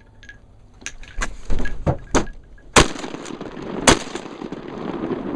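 Shotguns firing at ducks: a ragged volley of about seven sharp shots from more than one gun, the two loudest a second apart in the middle.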